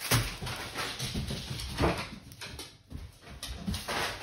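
Packaging crinkling and rustling as it is handled, in uneven bursts.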